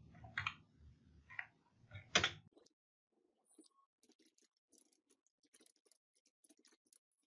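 Computer keyboard being typed on: faint, quick keystroke clicks, with a louder click a little over two seconds in.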